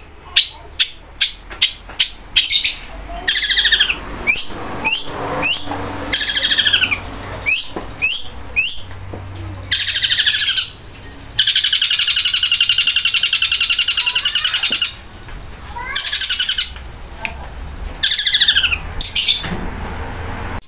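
Caged long-tailed shrike (cendet) singing loudly: sharp repeated calls and downward-sliding notes, with one long rattling trill of three to four seconds a little past the middle. This is the shrike's mimicry of the pelatuk bawang call, the long, loud burst of song that bird keepers call a 'tembakan'.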